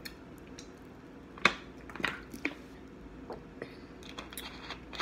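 A person drinking from a plastic drink bottle and swishing it around the mouth to clear the teeth. There are faint gulping and mouth noises and small clicks from handling the bottle, the loudest about one and a half seconds in.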